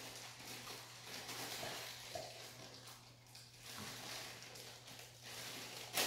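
Faint rustling and handling noises from ingredients and utensils being moved on a table, over a low steady hum. One sharp click comes near the end.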